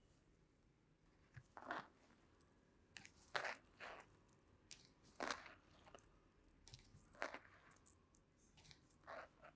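A masseuse's hands rubbing and pressing over a client's neck and shoulders, making about six short, soft swishes of hands on skin and clothing spread a second or two apart, with near quiet between them.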